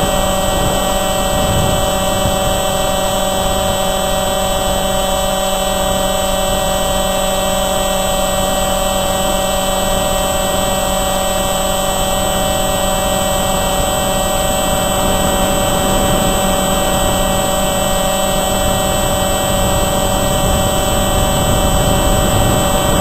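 Motor and propeller of a Tomhe F-22 Raptor profile RC model plane, heard from a camera mounted on the airframe: a loud, steady whine over a rush of air, holding one pitch.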